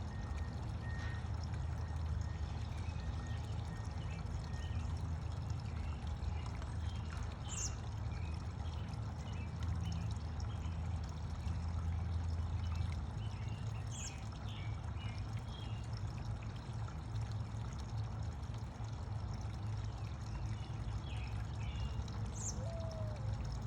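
Steady rushing background noise, like running water, with a few faint short bird chirps now and then.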